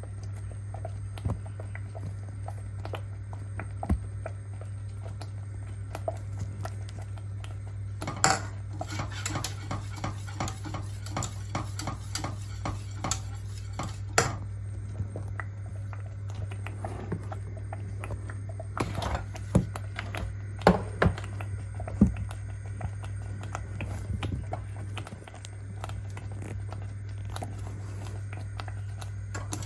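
Wire balloon whisk stirring thin maize flour porridge in a stainless steel pot, its wires scraping and clicking against the metal sides in spells. The stirring is busiest about eight to fourteen seconds in, with a few louder knocks around twenty seconds in, over a steady low hum.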